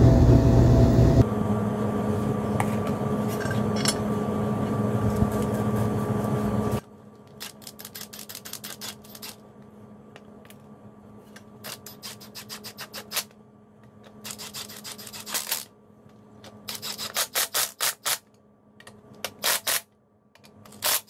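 Cordless impact wrench running in several short bursts of rapid hammering, driving in the bolts that fasten a new power steering pump to its bracket. A loud steady noise with a low hum fills the first seven seconds or so.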